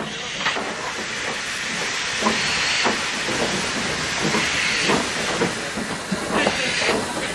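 Saddle-tank steam locomotive moving off slowly: a loud, steady hiss of escaping steam with slow, uneven exhaust chuffs.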